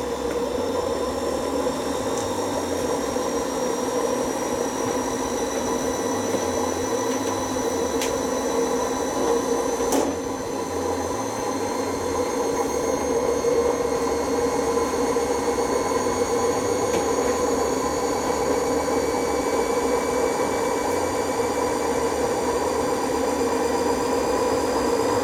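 Beko front-loading washing machine running with its transit bolts still in, its drum bearings worn out: a steady motor hum and drum rumble as the towel load turns, with a faint whine slowly rising in pitch.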